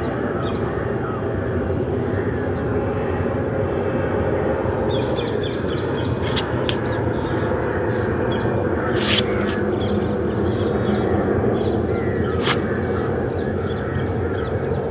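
An insect's steady, loud droning buzz, with short chirping calls and a few clicks over it.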